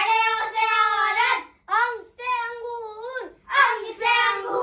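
A young boy's voice chanting the Hindi alphabet in a sing-song way, one letter and its picture-word at a time.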